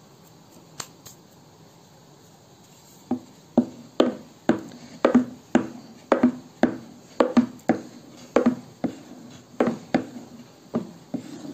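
Long thin wooden rolling pin rolling out dough on a wooden board, knocking against the board about twice a second once the rolling starts, a few seconds in. Before that there is only a couple of faint clicks while the dough is pressed flat by hand.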